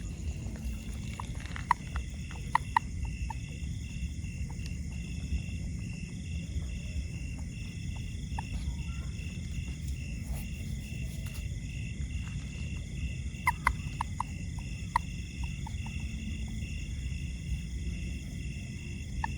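Outdoor chorus of calling frogs and insects: a steady, pulsing high trill, with short bursts of sharp clicking calls a few times.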